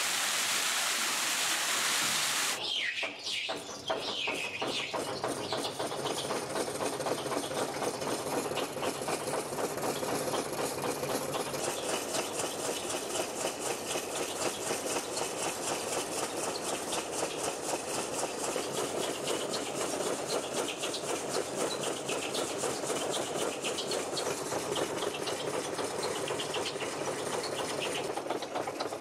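Water rushing through the sawmill's opened turbine. About two and a half seconds in it gives way to the turbine-driven line shaft and belt drives running with a fast, even mechanical clatter.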